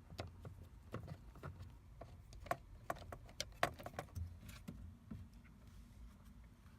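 Scattered light clicks and taps of hands and a tool working the plastic switch parts on a steering column, busiest in the first five seconds.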